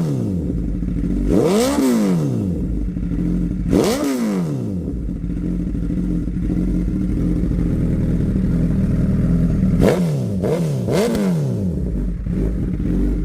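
Honda CBR1000RR's inline-four engine idling and being blipped: a quick rev that rises and falls about two seconds in and another about four seconds in, then steady idle, then three quick revs in a row near the end.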